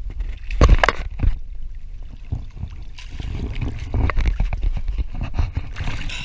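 Water splashing and sloshing close to the microphone at the side of a boat, with a loud splash about a second in, then more continuous splashing as a hand reaches into the water after a fish at the surface.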